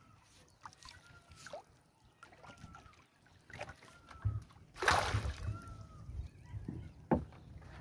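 Wet fishing net being hauled hand over hand out of a lake into a boat: water dripping and splashing off the mesh, with a few light knocks, and one louder splash about five seconds in.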